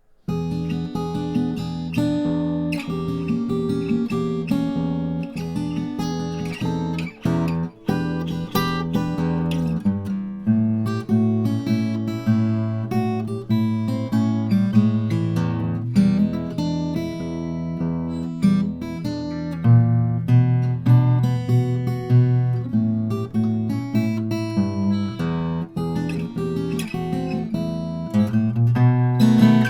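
Martin acoustic guitar played solo, a run of chords and single notes that starts suddenly just after a moment of silence.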